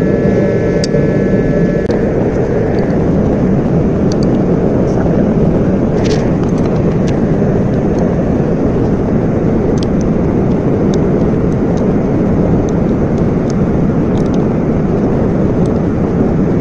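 A steady, loud rushing roar of machinery noise, with scattered light clicks of a hand tool on engine-bay parts.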